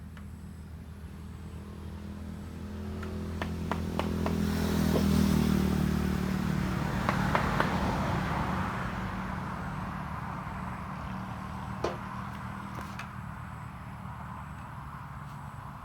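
A motor vehicle engine passing by: its low hum swells to a peak about five seconds in, then slowly fades. A few sharp knocks sound over it.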